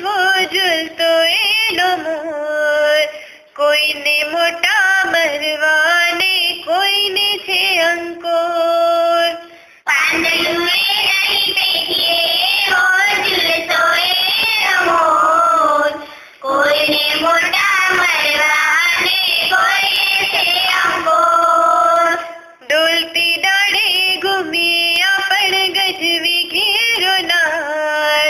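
A woman singing a Gujarati poem in long melodic phrases of about six seconds each, with short breaths between them.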